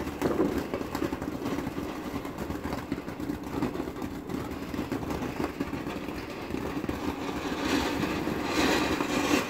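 A ground fountain firework spraying sparks: a steady rushing hiss with fine crackling, which turns brighter and harsher near the end.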